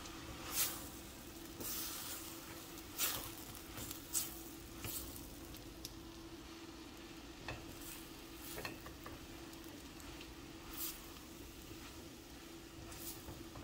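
Chopped vegetables dusted with flour sizzling in olive oil in a stainless steel pot, stirred with a silicone spatula: irregular swishing and scraping strokes every second or two over a steady low hum.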